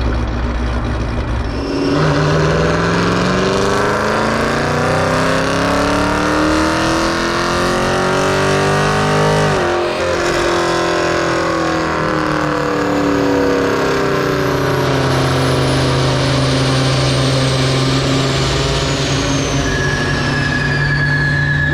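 Highly modified 5.7-litre Hemi V8 with CNC-ported Stage 3 cylinder heads making a full-throttle pull on a chassis dyno. The revs climb steadily for about eight seconds, then the throttle closes and the engine winds back down to a steady idle. A steady high whistle comes in near the end.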